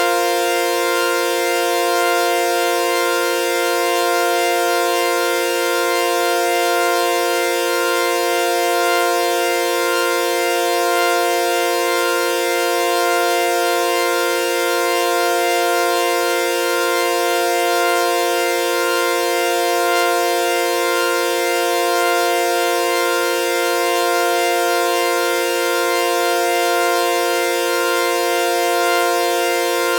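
Sawtooth-wave synthesizer chord, F suspended fourth (F, B-flat, C), held as one steady buzzy tone with a slight slow wavering in loudness.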